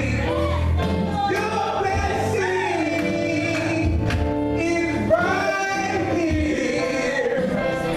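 Church choir of men's voices singing a gospel song.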